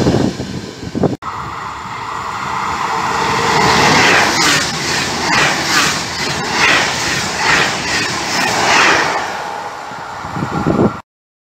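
A freight train of tank wagons rolling past for about a second, then, after a cut, an Italo AGV 575 high-speed electric train running past the platform: a loud rush of wheels and air with a repeated clatter of its bogies over the rail joints, roughly once a second. The sound cuts off abruptly near the end.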